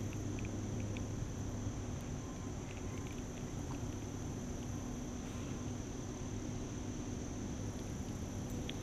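Crickets chirring steadily in a high, even drone over a low steady hum, with a few faint light clicks in the first few seconds.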